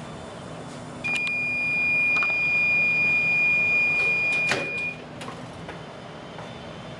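Heat press beeper sounding one long steady high tone for about four seconds. Just before the tone stops there is a sharp clack as the press's upper platen is unclamped and lifted open.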